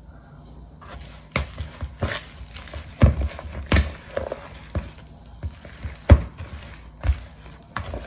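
Metal fork stirring thick shredded-chicken and cream cheese filling in a plastic mixing bowl, knocking and scraping against the bowl in irregular strokes, a few of them sharp and loud. It starts about a second in.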